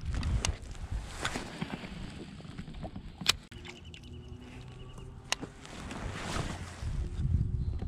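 Handling noise of a baitcasting rod and reel being worked from a kayak, picked up close by a chest-mounted camera: low rubbing and rumble with several sharp clicks, and a swell of noise as the rod is swung into a cast about six seconds in.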